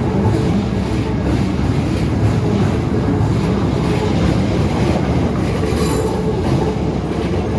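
Keikyu electric train passing close by over the level crossing: a loud, steady rumble of wheels on the rails with a faint steady tone running under it.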